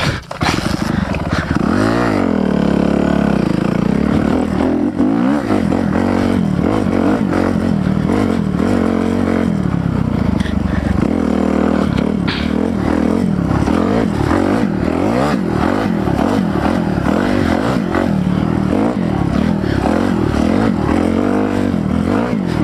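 Kawasaki KLX300R dirt bike's single-cylinder four-stroke engine picking up about a second in after a choppy start, then running steadily and revving up and down again and again.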